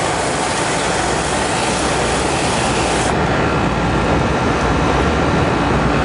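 Hose-end coil-cleaner sprayer jetting a water-and-cleaner mix onto the fins of an air-conditioner condenser coil: a steady, loud hiss that loses its highest part about halfway through.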